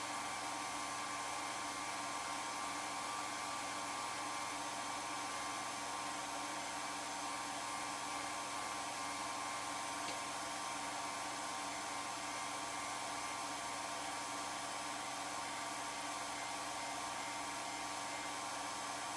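Home-movie film projector running: a steady whir from its motor and cooling fan, with a few constant hum tones.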